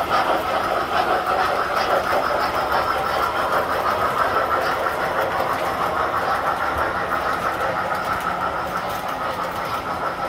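Several tinplate model trains running on the layout: a steady, rapid clattering rumble of motors and wheels on metal track, easing a little near the end.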